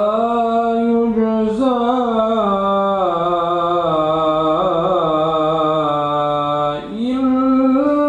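A man reciting the Qur'an in a chanted, melodic style, drawing one long phrase out over a held, ornamented note that wavers in pitch. After a short break about seven seconds in, he starts a new phrase.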